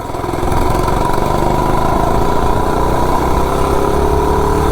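Modified single-cylinder four-stroke 98cc 3-horsepower mini bike engine, cammed with a billet flywheel and governor removed, pulling under load as the bike rides, its revs climbing slowly and steadily. It gets louder over the first second, then holds.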